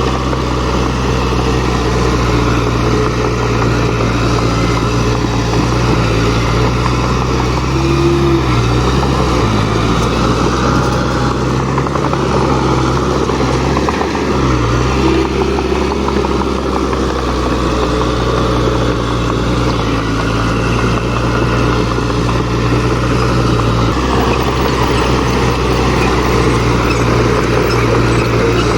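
Heavy earthmoving machine's diesel engine running steadily, its pitch shifting briefly a few times as the load changes.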